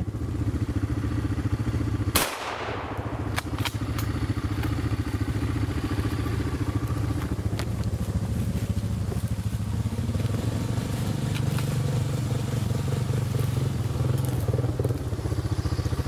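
ATV engine idling steadily, a little louder in the second half, with one sharp bang about two seconds in.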